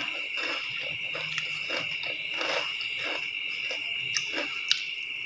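Someone eating fried rice with her hands: chewing and soft wet mouth and handling sounds, irregular at about two or three a second, with a couple of sharp clicks near the end. A steady high-pitched trill runs underneath.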